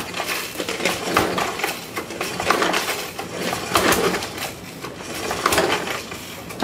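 Recoil pull-starter on a Mountfield Emperor's petrol engine pulled four times, about a second and a half apart, each pull briefly cranking the engine over. The engine does not fire: it has not run for years.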